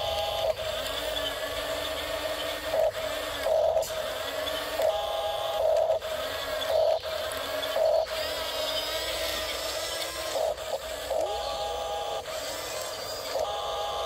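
Small electric drive motors and plastic gearbox of a radio-controlled toy bulldozer whining as it crawls on its tracks and pushes loose soil, the pitch rising and falling as it speeds up, slows and reverses.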